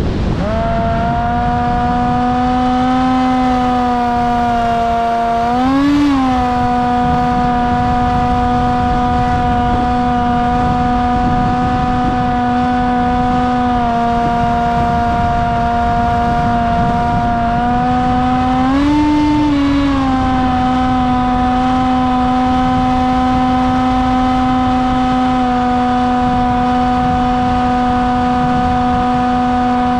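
Electric motor and propeller of a Bixler RC plane running with a steady whine, briefly rising in pitch twice, once about six seconds in and again past the middle.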